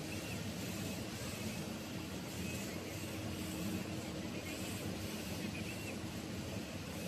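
CO2 laser fabric cutting machine running, its laser head travelling over the bed: a steady machine hum and air noise, with faint short high whines now and then.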